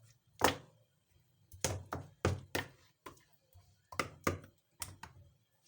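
About ten sharp knocks and thunks in an irregular rhythm, most in close pairs, from a mixing bowl being handled while fish heads are coated in a thick spiced yogurt-and-gram-flour marinade.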